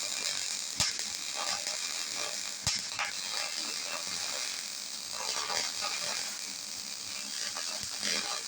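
MIG welding arc crackling steadily as weld is laid into gaps in a backhoe bucket's steel frog. Two sharp clicks sound, just under a second in and again near three seconds.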